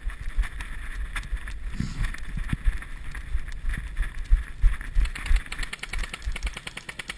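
Wind buffeting the microphone of a body-worn camera, with irregular knocks and rustles of the wearer moving across a grassy field. About five seconds in, a fast, even rattle of clicks starts up.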